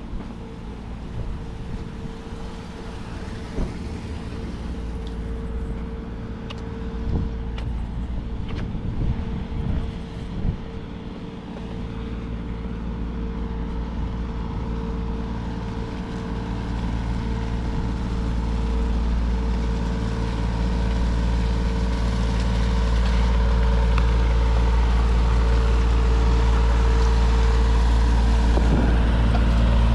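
A large engine running steadily with a low, even hum that grows louder through the whole stretch, among city street noise. A few sharp knocks sound in the first third.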